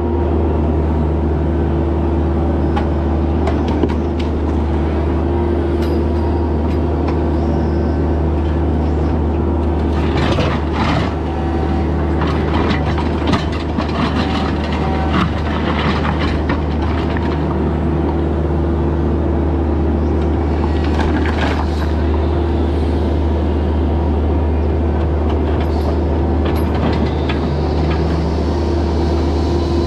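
Bobcat E26 mini excavator's diesel engine running steadily while working, with scattered clanks and scrapes from about ten to sixteen seconds in and again around twenty-one seconds.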